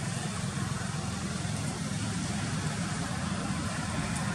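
Steady background noise: a low rumble with a fainter hiss above it, without any clear calls or knocks.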